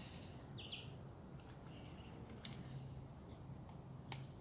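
Faint clicks of a microSD card being pushed into the card slot on the back of a Swann Wi-Fi security camera, twice, the second just after four seconds in.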